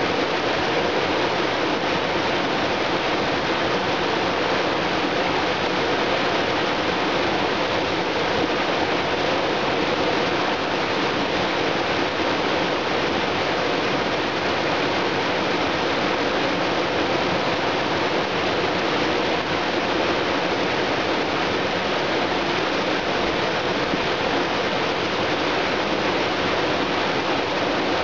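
Small waterfall spilling over a rock ledge into a pool: a steady, unbroken rush of water.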